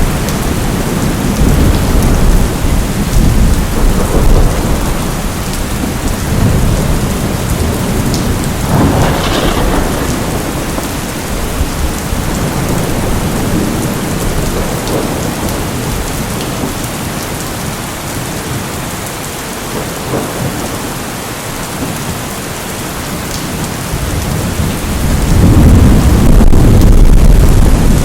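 Steady heavy rain with thunder rumbling underneath; the rumble swells briefly about nine seconds in and builds to its loudest near the end.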